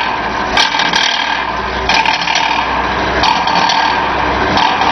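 Teabag packaging machine running: a steady mechanical clatter from its tea-filling and bag-forming mechanism, with a louder stroke about every 1.3 seconds as it cycles.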